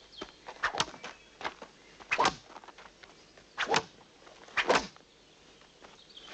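A series of sharp strikes, about six, at uneven intervals of up to a second and a half.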